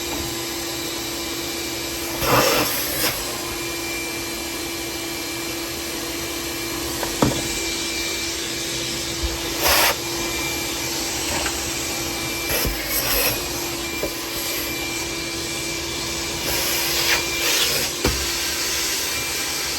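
Vacuum cleaner running steadily with a constant hum, sucking crumbled old shifter-bushing debris out of a W56 transmission's shifter housing, with several brief louder rushes along the way.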